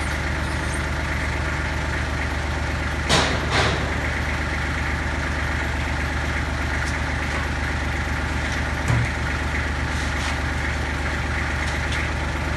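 Kubota diesel tractor engine idling steadily. Two metal clunks come a little after three seconds in and another near nine seconds, as the three-point quick hitch is lowered and lined up with the generator frame.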